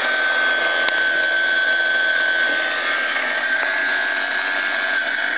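Small battery-powered electric inboard motor of an 18-inch toy boat running steadily with a high whine, unloaded on its stand out of the water. A brief click comes about a second in.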